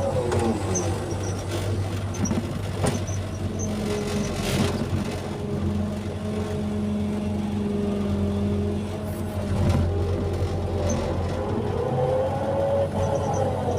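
Excavator's diesel engine running steadily under load, with the whine of its hydraulics rising and falling in pitch as the arm and bucket move soil.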